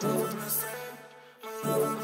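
Song music with no vocals: held chords that fade out about a second in, then a new chord comes in near the end.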